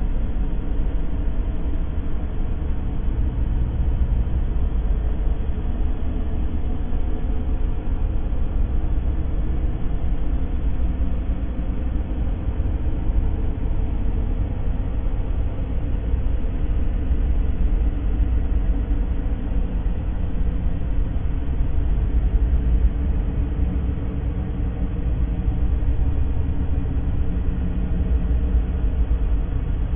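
Steady, unbroken noise of the sleep-sound kind, deep and rumbling rather than hissy, strongest in the bass and thinning toward the treble.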